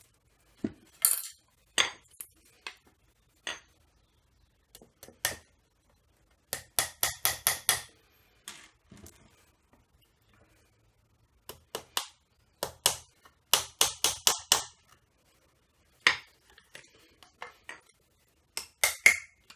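Claw hammer tapping small nails partway into a thin wooden strip laid on a wooden block, for a homemade drawer runner. The taps come in quick runs of several a second, with pauses between the runs.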